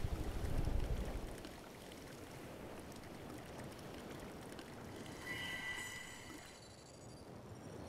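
Soft steady hiss of falling water, with a brief high ringing tone a little past the middle.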